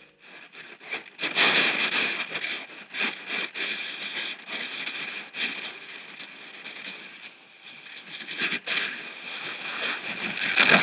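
Rushing wind and water as a rigid inflatable boat runs across the sea, with uneven gusts and splashes against the hull.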